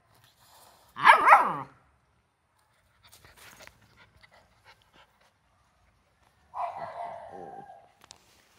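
Swiss Shepherd puppy giving two high barks that fall in pitch: a short one about a second in and a longer, drawn-out one near the end.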